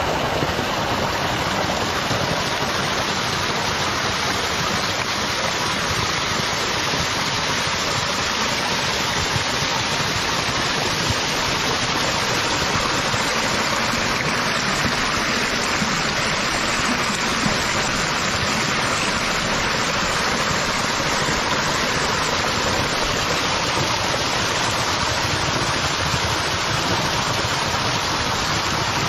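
Water rushing steadily through the spillways of a small model dam and churning down a dirt channel below a paddle-wheel turbine.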